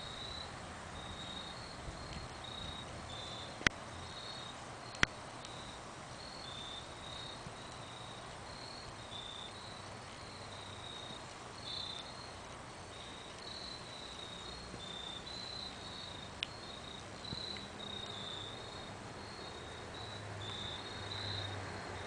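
Crickets chirping in a steady run of short, high chirps. Two sharp clicks cut in about four and five seconds in, and a fainter one later.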